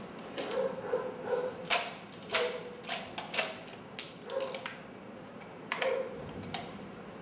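Plastic toy car being handled and worked by hand: an irregular string of sharp clicks and rattles, some with short squeaky blips.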